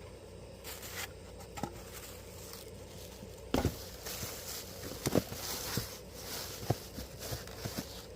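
Hands working on the air-conditioner fan motor's mounting: scattered clicks and clinks of small metal parts with short bursts of rustling, over a faint steady hum.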